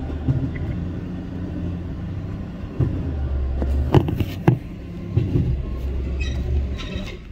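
A 4x4 truck's engine running low and steady as it crawls through snow, with a few sharp clanks between about three and five seconds in.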